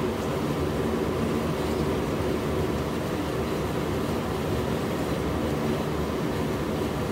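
Fokker 50's twin turboprop engines and six-bladed propellers droning steadily, heard inside the cockpit: a hum of several steady tones over a constant rush of airflow.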